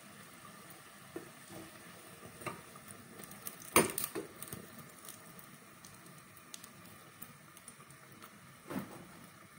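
Samosas deep-frying in a pot of oil with a faint steady sizzle. A metal spoon clinks sharply against the pot just before four seconds in, and a softer knock follows near the end as a fried samosa is lifted out.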